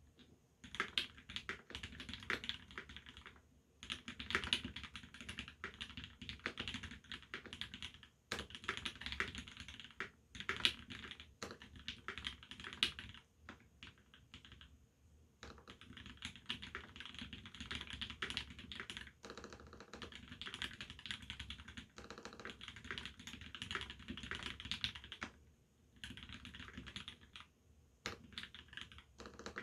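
Typing on a TX87se mechanical keyboard with a brass plate, lubed C³ Tangerine R2 linear switches and GMK doubleshot ABS keycaps: fast runs of keystrokes, a second or a few seconds at a time, with short pauses between them.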